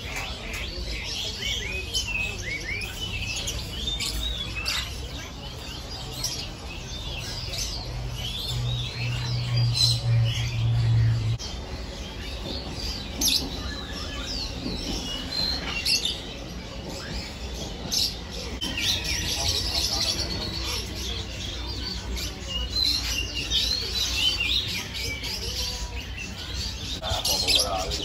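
Many caged small birds chirping and twittering at once, a dense, constant chorus of short high calls. A low steady hum comes in a third of the way through and lasts about three seconds.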